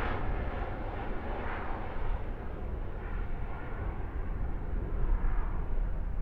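Airliner jet engine noise, a broad rush that fades and loses its high end as the aircraft moves away, over a steady low rumble.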